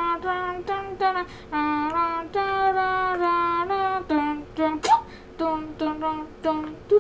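High-pitched cartoon voice singing a tune in a string of short held notes, like a child's voice.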